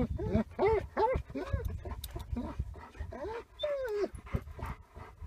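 Dog whining and whimpering in a string of short rising-and-falling whines, several a second.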